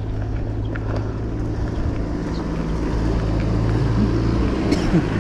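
Steady low rumble of a bike riding along a rough, rocky trail: tyre and wind noise, with a few clicks and rattles near the end.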